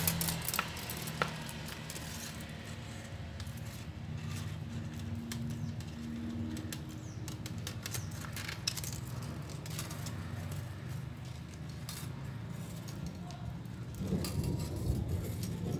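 Light metallic clinks and scrapes of a flat steel recoil-starter spring being coiled tightly by hand, over a low steady background hum.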